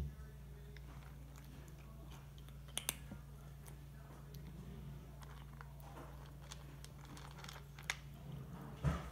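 A kitten crunching dry kibble from its bowl: scattered small crunches and clicks, with a few sharper clicks near 3 s and again near the end. A steady low hum runs underneath.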